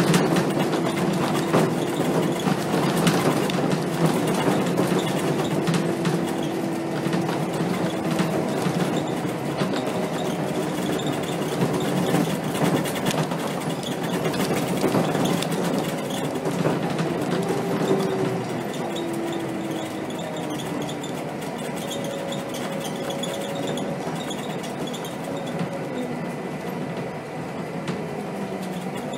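Scania K270 city bus heard from the driver's cab while driving: the diesel engine and driveline running steadily, with constant rattling and clicking from the cab fittings. The engine note shifts a little past halfway and the sound eases down somewhat as the bus slows.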